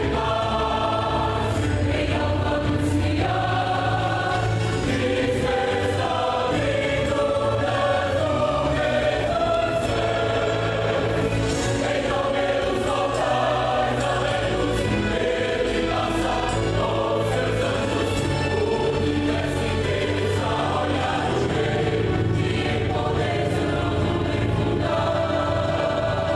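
Youth church choir singing a gospel song in full voice over band accompaniment, with a steady bass line and regular drum beats.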